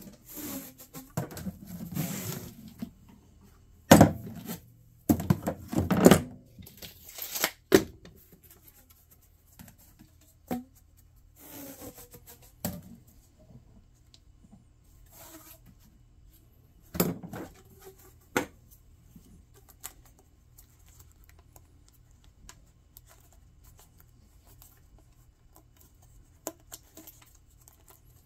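Flexible corrugated plastic heater ducting and a rubber duct fitting being handled and pushed together: irregular crinkling, scraping and sharp clacks, loudest about four seconds in and again around seventeen seconds, then mostly quiet for the last third.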